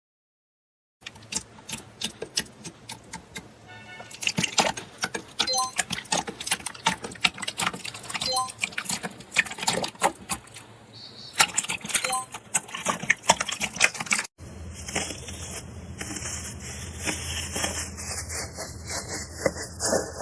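Close-up crisp crunching and crackling made of many sharp clicks, starting about a second in. About two-thirds of the way through it cuts off suddenly and a second stretch of crackling follows over a low steady hum.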